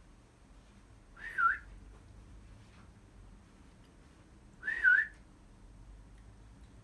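A person whistling to call a dog: two short whistles, about a second in and again some three and a half seconds later, each dipping in pitch and coming back up.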